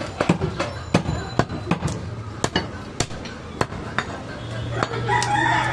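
A butcher's knife knocks and chops on a wooden log chopping block while mutton is being cut, in quick irregular strikes about three a second. Near the end a rooster starts crowing.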